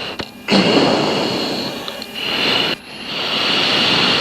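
A fighter pilot's heavy breathing through his oxygen-mask microphone after G-awareness turns: two long, rushing breaths, the first about two seconds long and the second starting about three seconds in.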